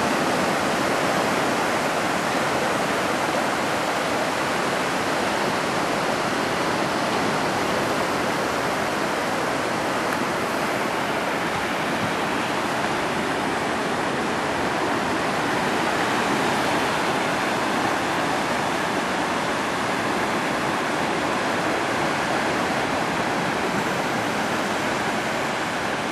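Ocean surf breaking and washing up the shore: a steady, even rush of waves with no single break standing out.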